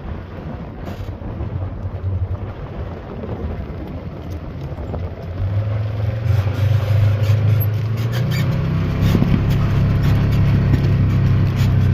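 A vehicle engine running at low speed with a steady low hum, growing louder about five to six seconds in.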